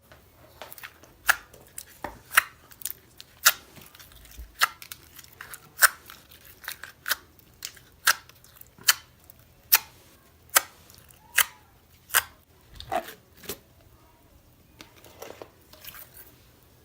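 Large batches of slime being mixed and squeezed by hand, giving sharp clicking pops about once a second that grow softer and sparser near the end.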